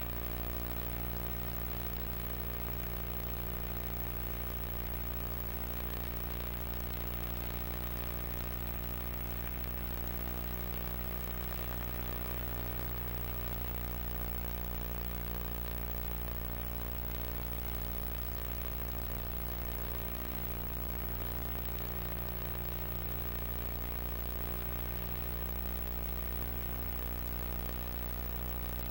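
Steady low electrical hum with a buzzy stack of overtones over a faint hiss, unchanging in level.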